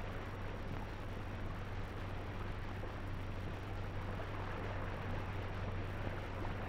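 Steady hiss with a constant low hum from an old 1930s film soundtrack; no distinct sound events.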